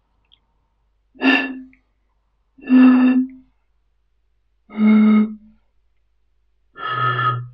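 Four breathy, hooting notes from blowing across the mouths of glass bottles one after another. Each note is lower than the last, and the fourth is much deeper, as the bottles get bigger and their larger air space resonates at a lower pitch.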